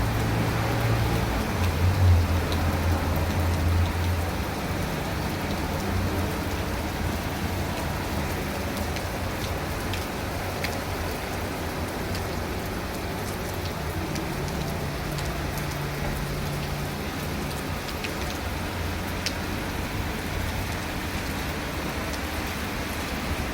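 Heavy rain falling steadily, with a low hum in the first few seconds that is loudest about two seconds in.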